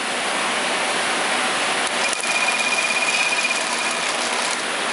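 Computer-controlled zipper sewing machine running at slow speed as it starts stitching nylon coil onto zipper tape: a steady mechanical whir, with a thin high whine about two seconds in that holds for about two seconds.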